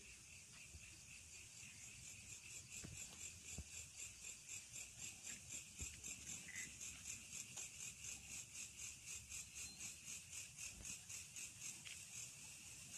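Faint night insects chirping: a high pulsing chirp at about three pulses a second that grows louder from about two seconds in, over a steady higher-pitched insect trill.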